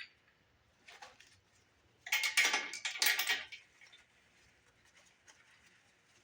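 Steel lifting chain and shackle clinking and rattling against each other, in a short burst of jangling about two seconds in, with a few lighter clicks around it.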